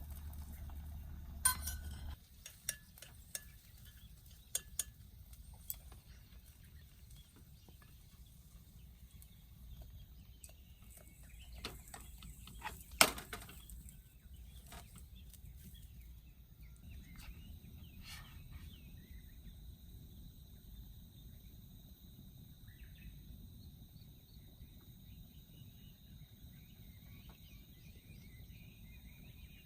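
Scattered light clinks and knocks, the sharpest about thirteen seconds in, over quiet outdoor background; a steady high tone comes in past halfway.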